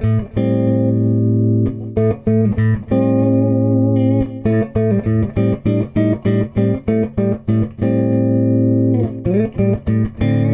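Improvised guitar music: plucked and strummed chords, some held and left ringing, with a stretch of quick repeated strokes through the middle.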